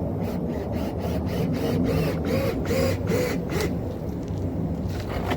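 Screws being driven into the storm door frame: a rhythmic run of short scraping, squeaking strokes, about four a second, that stops about three and a half seconds in, over a steady low rumble.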